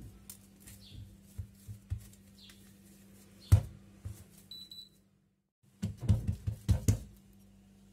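Kitchen handling sounds of dough being shaped and set down on a counter: soft knocks and thuds, one sharp loud knock about three and a half seconds in, and a quick run of knocks near the end. A brief high chirp sounds just after the loud knock.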